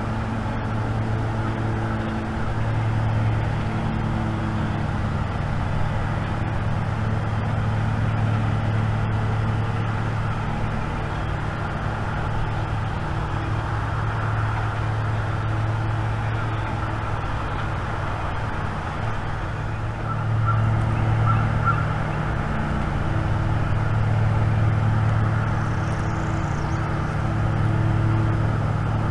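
Steady low rumbling background noise, with a short run of honk-like bird calls about two-thirds of the way through and again at the end.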